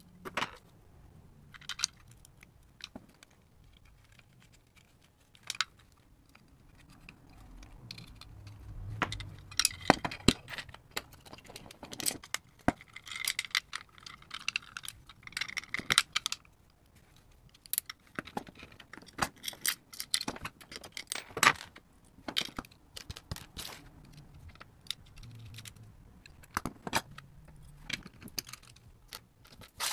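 Handling noise from a guitar effects pedal being reassembled by hand: irregular clicks, taps and small metallic rattles as wires, circuit board and parts are pushed into the metal enclosure, with a busier spell of scraping and rustling in the middle.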